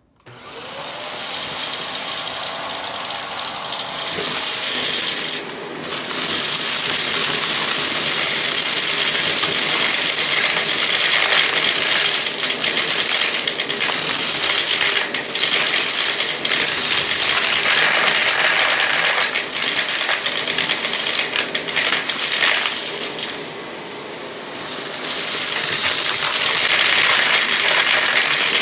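Vacuum cleaner switching on, its motor spinning up, then sucking confetti, rice and pennies through a bare metal wand: a steady rush of air with constant crackling and clattering as the debris and coins rattle up the tube. The sound drops back briefly about five seconds in and again for a second or so late on.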